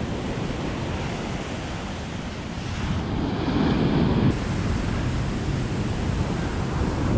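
Ocean surf washing and breaking on the shore, with wind buffeting the microphone; the surf grows a little louder about three seconds in.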